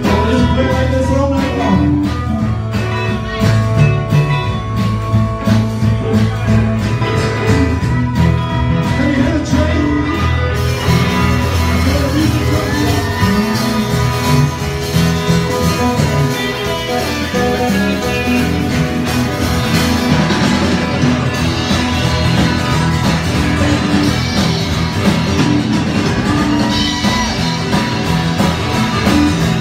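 Live band playing a country-rock song with electric and acoustic guitars and drums. Early on a harmonica plays long held notes into the vocal mic, and later a man sings. The band gets fuller about ten seconds in.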